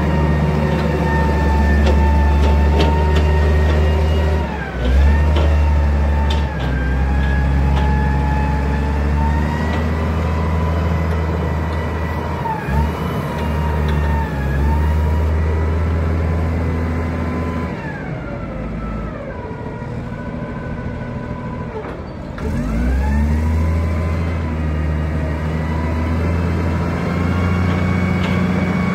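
Lonking 7-ton diesel forklift engine running as the truck drives and maneuvers. A high whine rides over the low engine drone and slides in pitch with the revs. The engine drops and picks up several times, settling lower for a few seconds past the middle before revving up again.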